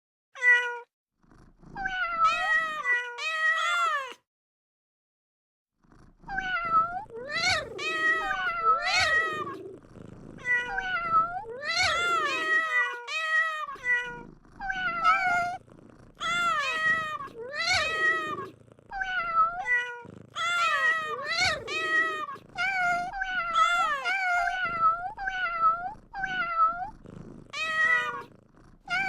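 Domestic cat meowing over and over in short rising-and-falling calls, about one to two a second, with a pause of about two seconds near the start.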